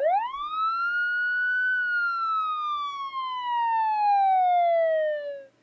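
A single siren wail: one tone that rises quickly for about a second, then falls slowly and steadily before cutting off near the end.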